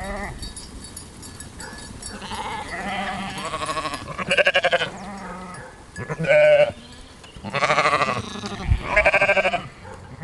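Ewes and lambs bleating, a string of about six wavering calls, some deeper and some higher-pitched.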